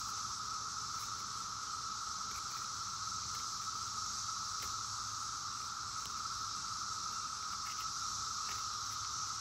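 Cicadas buzzing in a steady, unbroken chorus, with a few faint scrapes of a serrated peeler cutting rind from a lemon.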